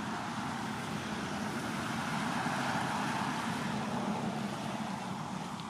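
Steady engine hum of a motor vehicle, growing a little louder in the middle and easing toward the end.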